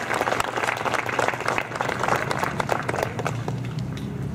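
Audience applauding, with many hands clapping at once; the clapping thins out to a few scattered claps about three and a half seconds in.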